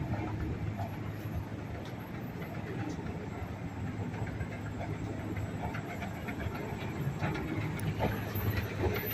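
Steady low rumble of street traffic and engines, with scattered light clicks and knocks, growing a little louder near the end.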